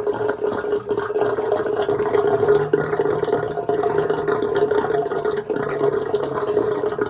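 Water running steadily out of a Jandy pool pump's housing as it is drained.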